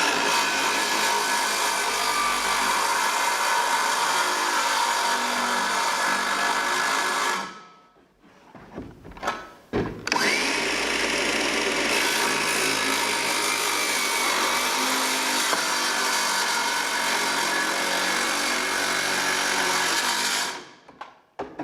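Handheld power tool working wood, its motor running steadily. It stops about seven seconds in; after a pause with a few clicks it spins up again with a rising whine and runs on until near the end.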